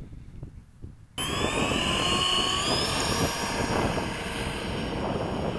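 Small RC jet's electric ducted fan starting abruptly about a second in, then whining and rising steadily in pitch as it throttles up for a takeoff roll.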